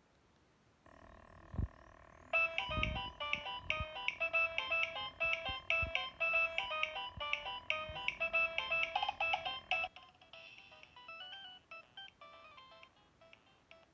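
Nokia 2115 mobile phone playing a polyphonic ringtone: after a held chord, a fast melody of short electronic notes starts about two seconds in, then turns quieter with a different pattern about ten seconds in. A few low thuds sound under the first part.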